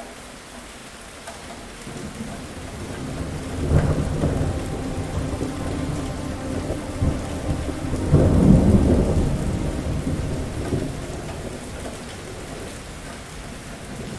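Steady heavy rain with rolling thunder. A rumble builds about two seconds in and breaks into a sharp clap near four seconds, then a louder, longer peal swells around eight seconds and dies away.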